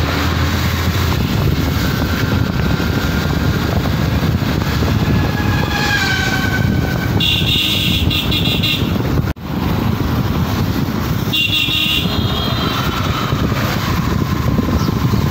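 Steady rush of wind and road noise from a vehicle moving along a paved road, with a horn honking twice: a longer toot about halfway through and a shorter one a few seconds later. The sound cuts out for an instant between the two honks.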